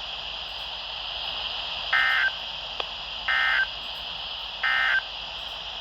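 Emergency Alert System end-of-message (NNNN) code: three short digital data bursts a little over a second apart, marking the end of a severe thunderstorm warning, over steady radio hiss.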